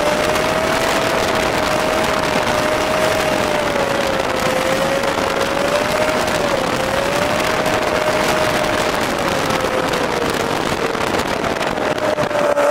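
VW-engined Meyers Manx–style dune buggy driving at steady road speed, heard from inside the open-top buggy: the engine runs under a heavy rushing wind and road noise, with a steady whine that wavers slightly in pitch.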